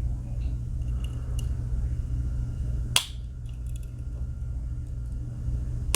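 A single sharp click about three seconds in, typical of a tool on a Victorinox Swiss Army knife snapping against its backspring, with a few fainter clicks of the knife being handled, over a steady low hum.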